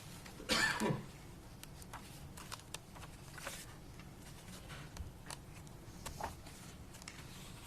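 Faint rustling and soft clicks of paper pages being leafed through, over quiet room tone, with one brief louder noise about half a second in.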